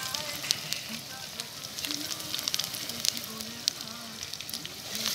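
Sliced onions and green chillies sizzling in a pot over a wood fire, a steady hiss with many scattered sharp pops and crackles.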